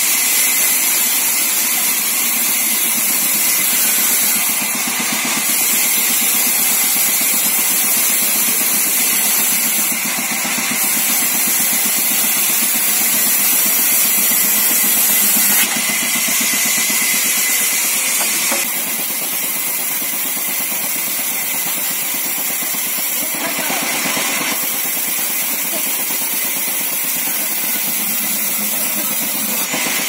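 A large 24-inch band saw running and ripping a thick wooden slab: a steady loud mechanical whir with a hiss from the blade cutting through the timber. The hiss swells and eases several times as the slab is pushed through.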